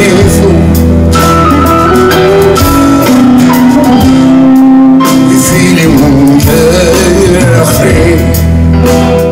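Live amplified concert music: a man singing into a microphone while strumming an acoustic guitar, with instrumental accompaniment, loud and steady.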